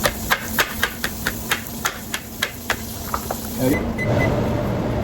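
Rapid, even knocks of a kitchen utensil, about four a second, with a faint hiss behind them. The knocks stop about three and a half seconds in, giving way to a steady low hum.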